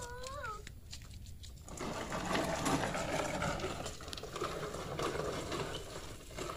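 A short meow-like call rising and falling in pitch right at the start, then a few seconds of whirring, rattling noise from a small machine running.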